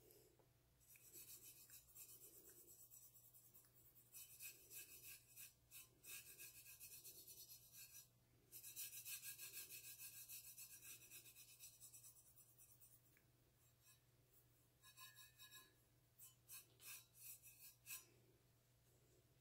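Bare fingertip rubbing brown rust-effect paint onto a gold-coated stainless steel tumbler: faint, repeated rubbing strokes, with a short pause before a last few strokes.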